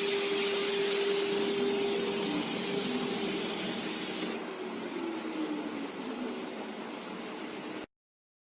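Small CNC machine's motor running with a steady hiss and hum. About four seconds in it drops sharply to a quieter sound whose tones slowly fall as it winds down. The sound cuts off near the end.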